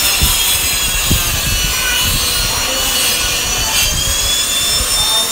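Continuous rough cutting and scraping as a false ceiling is cut open overhead, with a steady high whine underneath.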